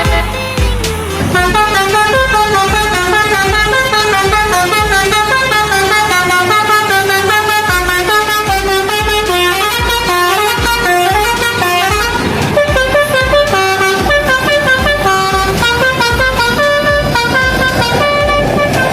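Telolet basuri bus horn playing a quick melody of stepped notes over a steady low beat. The tune changes about twelve seconds in.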